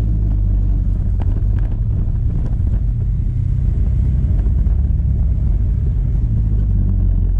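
Motorcycle ridden at a steady cruise: a continuous low engine rumble mixed with road noise.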